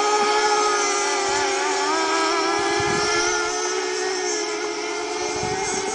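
Several radio-controlled racing boats running at speed together, their small engines making an overlapping high whine whose pitches waver up and down independently as the boats work around the course.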